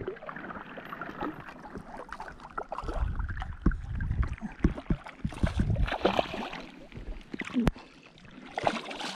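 Water splashing and sloshing as a hooked rainbow trout thrashes at the surface, mixed with scattered sharp knocks and clicks. The splashes come in uneven surges, the biggest a few seconds in and again near the end.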